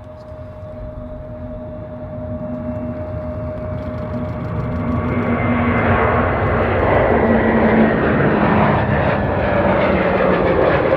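Airbus A321neo's Pratt & Whitney PW1100G geared turbofans at takeoff power as the airliner rolls, lifts off and climbs past. The engine roar builds steadily over the first half, then holds loud.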